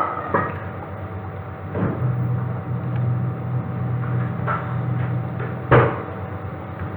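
Kitchen utensils knocking a few times, with a spoon and spice containers against a cooking pan, over a steady low hum that grows stronger about two seconds in.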